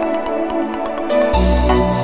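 Electronic background music: a steady pattern of synth notes, with a deep bass and a brighter, fuller layer coming in about two-thirds of the way through.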